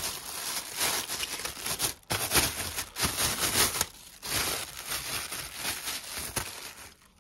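Plastic packaging, bubble wrap and a thin plastic bag, crinkling in repeated bursts as it is handled and pulled away, stopping shortly before the end.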